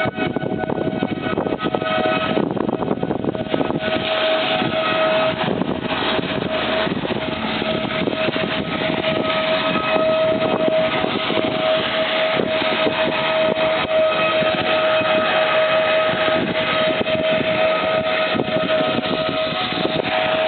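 Outdoor tornado warning siren sounding a long, steady held tone with overtones, signalling a tornado warning. The tone dips slightly in pitch at the very start and then holds level over a constant rushing hiss.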